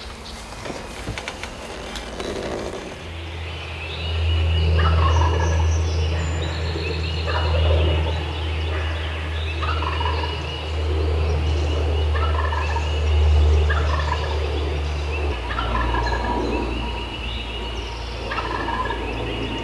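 Wild turkey gobblers gobbling repeatedly, about every two seconds, each gobble a short falling rattle, over a steady low hum.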